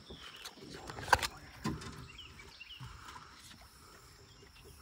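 Handling noise from a trotline being pulled hand over hand along the side of a small boat, with one sharp knock about a second in and a softer thud just after.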